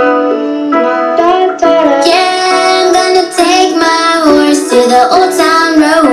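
Pop song with children singing over guitar, played loud through a Bluetooth TV soundbar with a built-in subwoofer.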